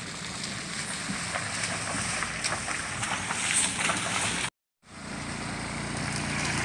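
A small pickup truck driving slowly over a rough, waterlogged dirt road, getting louder as it nears, its tyres crackling over wet ground. After a brief cut, a motor scooter's engine approaches with a steady hum.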